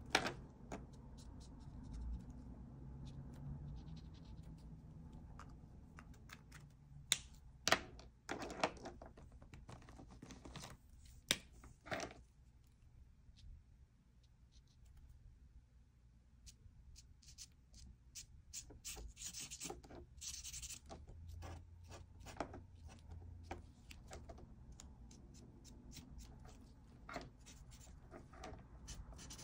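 Art marker tips scratching and rubbing across a paper card, with sharp clicks and taps of markers and their caps being picked up and set down on the desk, several of them bunched together about a third of the way in.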